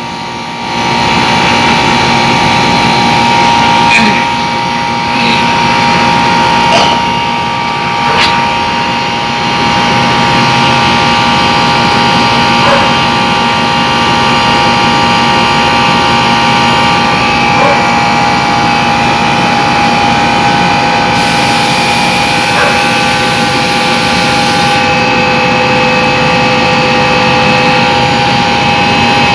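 Air conditioner compressor and condenser fan motor running steadily, a loud hum with several steady tones, while the system is being charged with refrigerant at about 40 PSI suction pressure.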